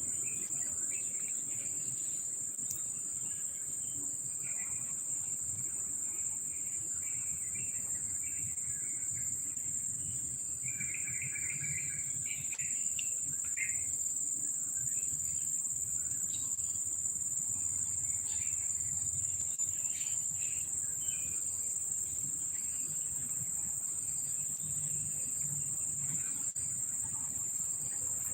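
Steady high-pitched drone of an insect chorus, typical of crickets, with a few faint short chirps about eleven to thirteen seconds in.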